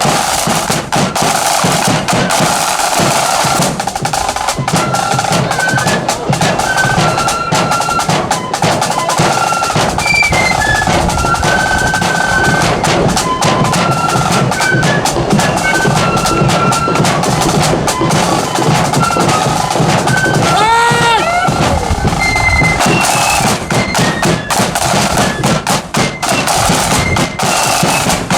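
Marching flute band playing a tune, with high flute melody notes over snare drum rolls and bass drum beats.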